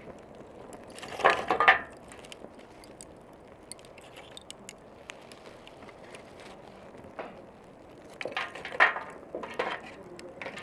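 Burning lump charcoal crackling with scattered small pops, with two louder spells of hard clinking and clattering, about a second in and again from about eight seconds in.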